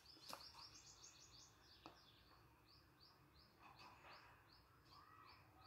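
Near silence: faint room tone with a steady run of short, high bird chirps, about three a second, and two faint clicks in the first two seconds.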